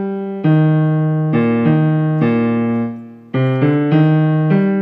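Piano playing the tenor and bass lines together as a part-learning track: a run of two-note chords, each struck sharply and then fading, with a short lull about three seconds in.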